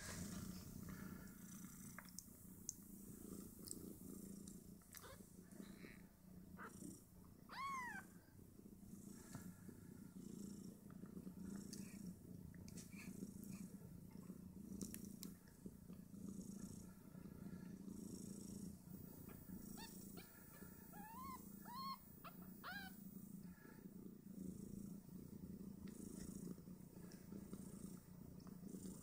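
Mother cat purring steadily and quietly while her newborn Snowshoe Siamese kittens nurse. Short, thin squeaking mews from the kittens break in once about eight seconds in, then several times about three-quarters of the way through, as they jostle at the teats.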